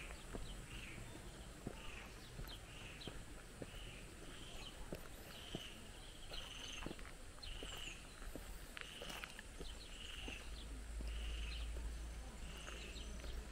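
Outdoor ambience: a small creature's chirp repeats steadily about every half second, over a steady high hiss, with scattered faint clicks and a low rumble that swells near the end.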